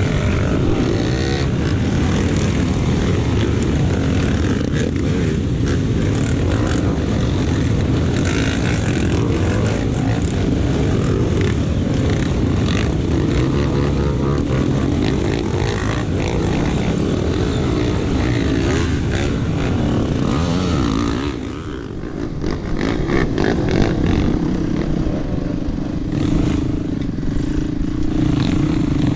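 Off-road trail motorcycle engine running under load, its note varying with the throttle. It eases off briefly about three-quarters of the way through, then settles into a steadier note.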